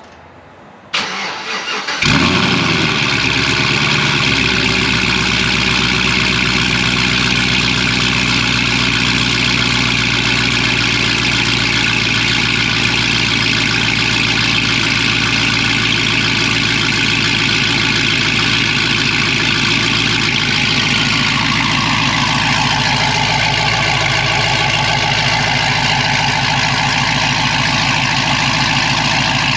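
Cold start of a 2009 Cadillac CTS-V's supercharged 6.2-litre V8, breathing through longtube headers, a catless Corsa X-pipe and Corsa Extreme mufflers. The starter cranks for about a second, then the engine catches with a loud flare of revs and settles into a steady, loud idle.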